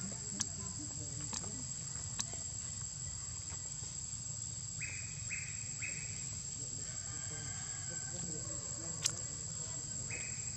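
A steady high-pitched buzz of insects. A short call, pulsed three times, comes about halfway through and again near the end, and a few sharp clicks are heard.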